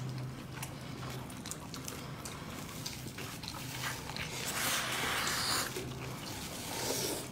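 Close-up eating sounds: a person chewing a mouthful of stir-fried meat and vegetables with wet smacking and small mouth clicks, and a noisy slurp lasting about a second, some four and a half seconds in.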